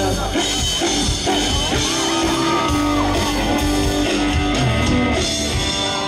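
A live country band playing through a PA, with drums and guitar, and vocals shouted or sung over the music.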